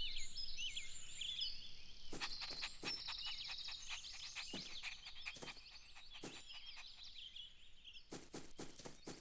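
Faint outdoor ambience of birds chirping and trilling, with scattered soft clicks and taps that come more often near the end.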